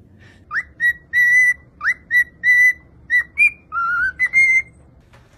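A pet bird whistling a run of about ten short, clear notes at much the same pitch. A few notes slide sharply upward, and one lower note rises about four seconds in.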